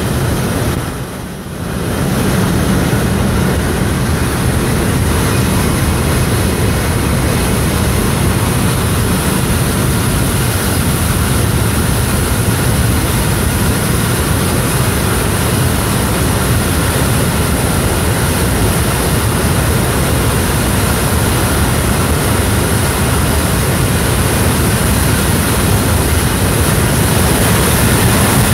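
C-17 Globemaster III's turbofan engines running steadily at ground idle: a loud, constant jet noise with a high hiss on top, dipping briefly about a second in.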